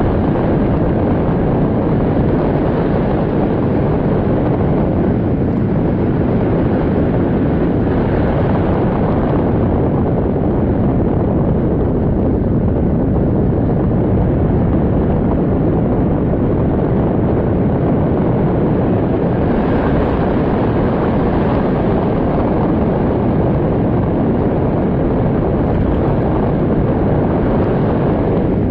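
Storm wind blowing hard, a steady loud roar with the wind rumbling on the microphone.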